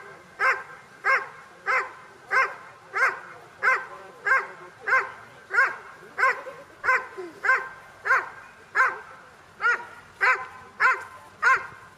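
Dobermann barking at a sleeve-holding protection helper, the hold-and-bark of IPO protection work. The barks come in a steady, even rhythm of about three every two seconds.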